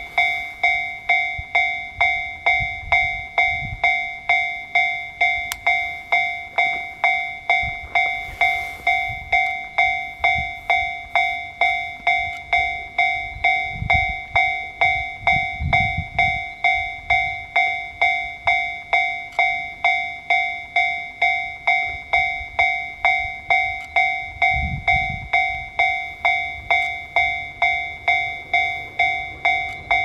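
Japanese level-crossing alarm bell ringing steadily, an even electronic ding about 1.7 times a second, with occasional low rumbling underneath. It signals that the crossing is closed for an approaching train.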